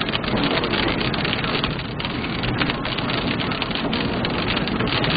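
Heavy rain pelting a moving car's windshield and roof: a dense, steady hiss of countless fine drop impacts, over the rumble of tyres on the wet road.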